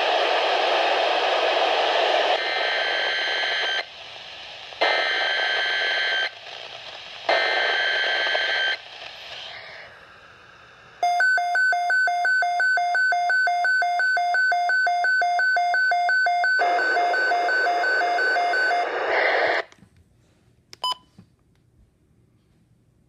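Midland WR120 weather radio activating for a severe thunderstorm watch: hissy broadcast with three short bursts of warbling data tones, the coded alert header, then the radio's own rapid, evenly pulsed alert beeping for several seconds. The sound cuts off and a single click follows near the end.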